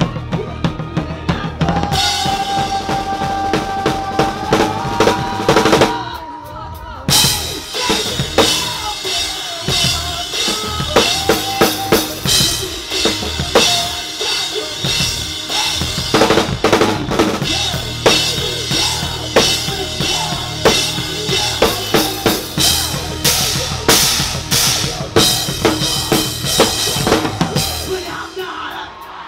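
Rock drum kit played live with a full band: driving kick and snare hits with cymbals over sustained electric guitars. About six seconds in the band stops for roughly a second, then comes back in at full force.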